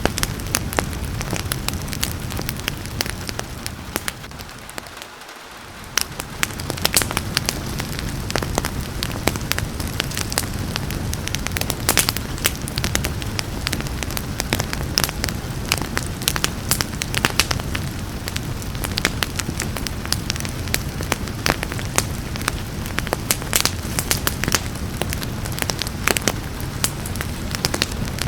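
Wood fire crackling and popping in a fireplace, dense sharp snaps over a steady hiss of rain. The sound dips briefly and swells back about five seconds in.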